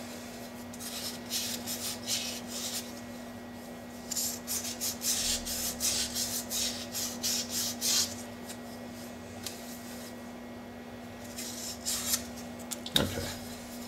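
A small piece of emery cloth rubbed by hand over the edge of a fibre-reinforced phenolic gear blank, in three spells of quick scratchy strokes with pauses between: deburring, taking the fuzz off the cut edge.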